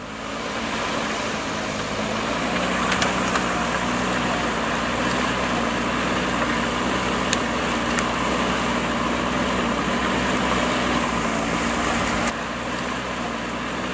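A vehicle engine running steadily under a constant hiss. The overall level drops abruptly about twelve seconds in.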